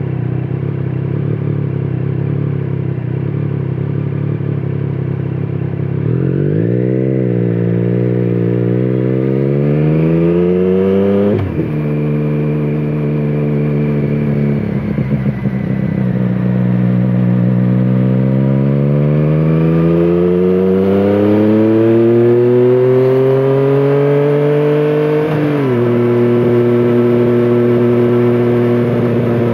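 2017 Triumph Street Triple 765RS's inline three-cylinder engine through a Scorpion Serket Taper carbon exhaust, running steadily, then rising in pitch through two long accelerations. Each ends in a sudden drop in pitch as the bike shifts up a gear, about eleven and twenty-five seconds in.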